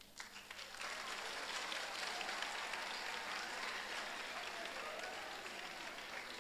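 An audience applauding with many hands, starting abruptly and fading a little toward the end.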